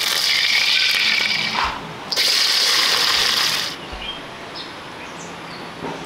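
Hot oil in a smoking wok sizzling loudly: two hissing bursts of about two and one and a half seconds, each starting and stopping abruptly, then quieter over the last two seconds.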